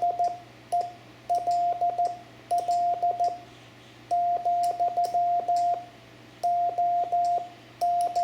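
Morse code (CW) keyed on an amateur radio transceiver, heard as a single mid-pitched tone switched on and off in dots and dashes, sending the operator's location (QTH). A faint click marks the keying of each element.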